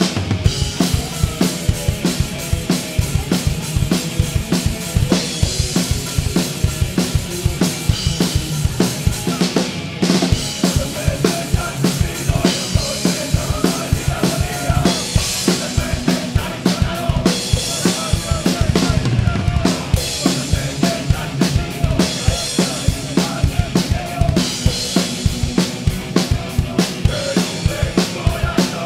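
Full drum kit played live: rapid, steady bass drum strokes under snare hits, with cymbal crashes and rides coming in stretches every few seconds. The band plays underneath.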